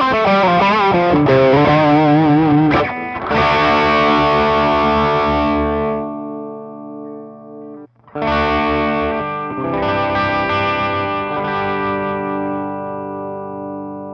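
Electric guitar played through a J. Rockett Archer overdrive pedal with a distorted tone: a quick run of bending single notes for about three seconds, then chords left to ring and fade. Near eight seconds in the sound stops briefly, and a new chord is struck and slowly dies away.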